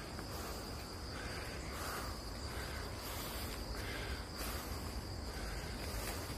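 Steady high-pitched trilling of insects, a cricket chorus, with soft footsteps on a dirt path.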